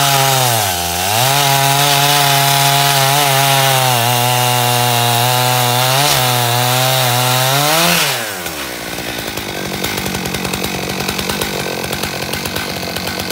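Chainsaw mounted on an aluminium chainsaw mill, running at full throttle through a jarrah burl, its pitch sagging briefly under load about a second in. About eight seconds in the throttle is released and the engine drops to a rough idle.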